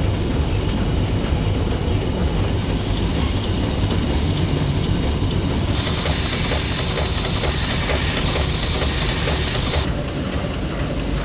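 Bookbinding machinery running in a hardcover production line: a steady mechanical rumble and hiss. A louder airy hiss comes in about six seconds in and drops away near the end, with faint rapid ticking in the middle.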